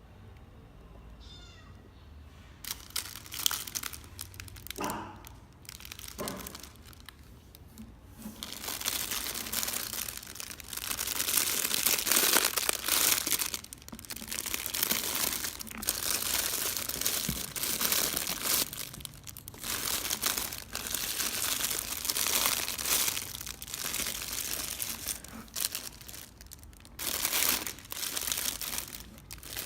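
Crinkling and rustling as a squishy toy and its packaging are handled close to the microphone. It comes in stretches with short pauses and is fainter for the first several seconds.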